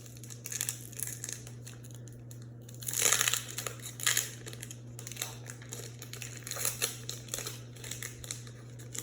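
Foil booster pack being torn open and crinkled by hand, the cards then slid out of the wrapper, with a run of crackling rustles loudest about three seconds in. A steady low electrical hum runs underneath.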